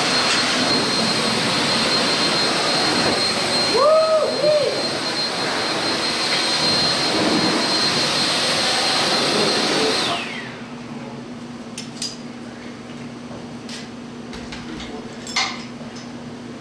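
A motor-driven blower runs with a loud, steady rushing whine, then is switched off about ten seconds in and winds down. Afterwards a low steady hum and a few light metallic clinks remain.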